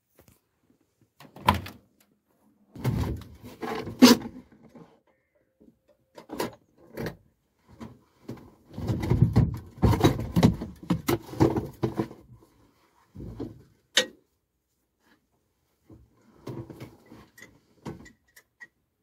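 Irregular clunks, knocks and scraping as a Star 200 truck's cab door and the hinged metal engine cover inside the cab are handled and the cover is lifted open, with a denser clatter midway.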